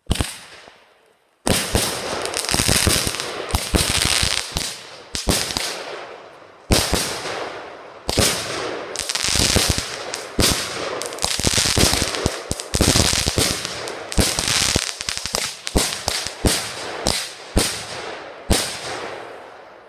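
Svea "Gold Bar" firework cake firing its barrage: a sharp bang at the start, then from about a second and a half in a near-continuous run of launches and pops with hissing between, in several bursts with short gaps, dying away near the end.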